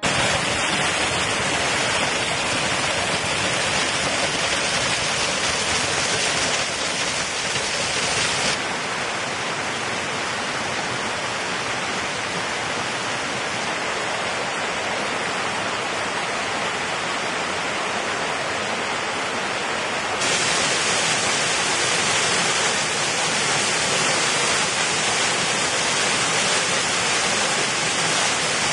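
Mountain streams tumbling over rocks and a waterfall pouring: a steady rush of water. It drops in level about eight seconds in and grows louder again about twenty seconds in, where the waterfall comes in.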